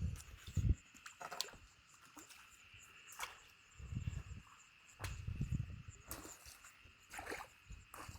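Handling noise from a freshly landed crucian carp being dealt with: dull bumps and rustles several times, with a few sharp clicks. A steady insect trill runs underneath.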